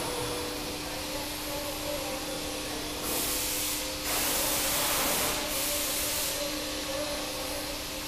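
Steady workshop hum with a constant low tone, broken by two bursts of loud hissing, a short one about three seconds in and a longer one right after.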